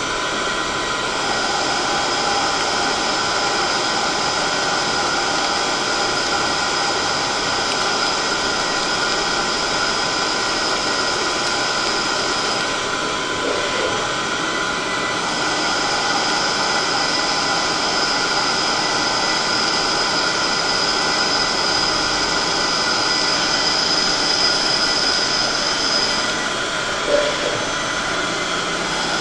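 CNC machine tool running with a steady mechanical noise and a high whine. The whine drops out about twelve seconds in and again near the end, returning each time after a few seconds, with a brief knock just before the end.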